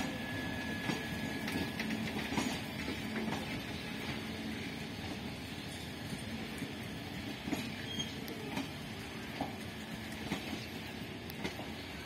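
Passenger coaches of an arriving express train rolling along the track, a steady rumble of wheels on rail with scattered clicks as the wheels pass over rail joints. A faint steady tone fades out about two seconds in.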